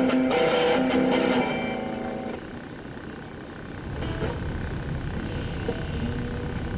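Electric guitar with distortion through an amp, strumming chords that ring on and fade out about two seconds in. Then a quieter stretch of amp noise with a few faint picked notes.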